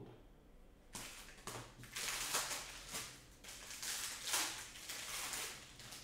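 Foil trading-card pack wrapper crinkling as it is torn open and crumpled by hand, in an uneven run of rustles starting about a second in.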